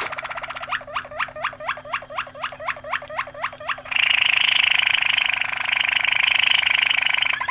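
Waterslager (Malinois) canary singing. It starts with a run of quick repeated notes that each sweep sharply downward, about four a second, then breaks into a louder, fast rolling trill about four seconds in.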